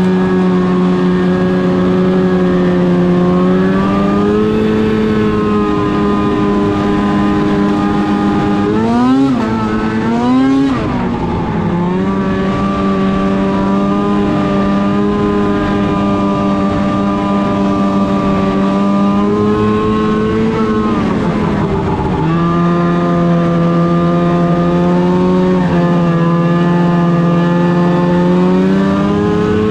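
Arctic Cat M8 snowmobile's two-stroke twin engine running at a steady high pitch while riding, with two quick rises in revs about nine and ten seconds in, and a dip and climb back about two-thirds of the way through.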